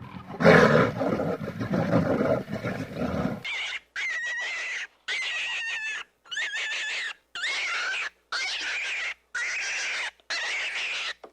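A large cat roaring for about three and a half seconds, then a different animal: high-pitched calls in a run of roughly one-second pieces with short silent gaps between them.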